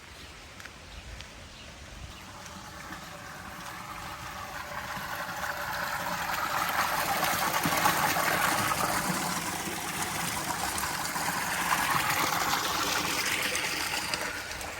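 Running water, a steady rushing that grows louder over several seconds, eases a little, then swells again before dropping back.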